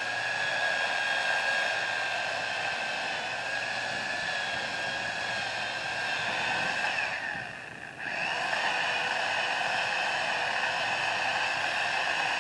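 Gas chainsaw running at high revs, cutting into a tree. The engine eases off for about a second some seven seconds in, then goes back to full throttle.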